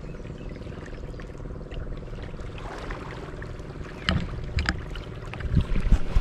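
Sea water lapping and splashing right at the microphone as a camera is held at the surface beside a surfacing whale shark, with several louder splashes in the second half. A steady low hum runs underneath.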